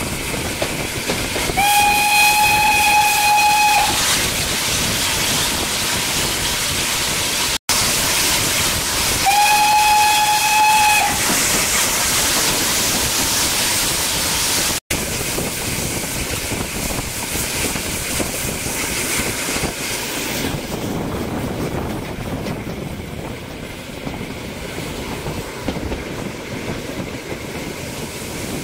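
Steam locomotive whistle blowing twice, each blast about two seconds long, over the steady hiss and running noise of the train.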